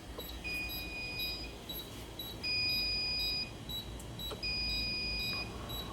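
Fire alarm system sounding its trouble signal for a battery charger failure: a steady string of short high beeps, with a louder, longer tone about a second long sounding three times, about two seconds apart.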